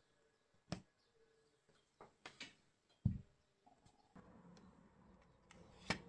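A few sharp light clicks and taps, with a dull thump about three seconds in; a faint low background sound comes in about four seconds in.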